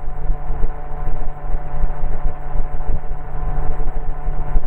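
MTOsport gyroplane's engine and pusher propeller running steadily at full throttle in the climb after takeoff, heard from the cockpit over gusty wind noise on the microphone.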